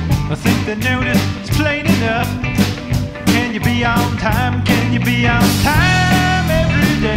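Rock music with a steady drum beat and bass under a wavering lead melody.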